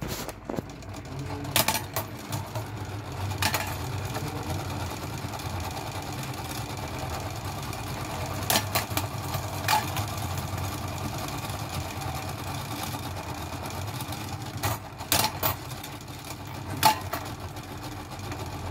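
Clockwork spring motor of a 1950s West German tin wind-up juggling-elephant toy running steadily, whirring as it spins the propellers and drives the celluloid balls up the corkscrew. A few sharp clicks sound here and there, some in quick pairs.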